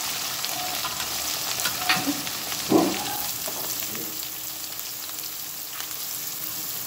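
Sliced onions sizzling in hot mustard oil in an iron kadhai: a steady frying hiss, with one knock a little under three seconds in.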